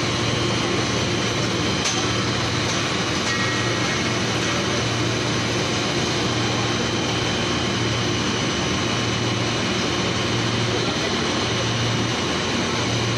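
PVC foam board extrusion line running: a steady machine drone with a low hum.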